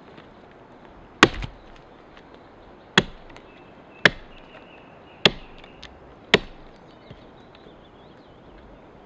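Homemade collared axe chopping branches off a fallen tree trunk: five sharp blows over about five seconds, the later ones about a second apart.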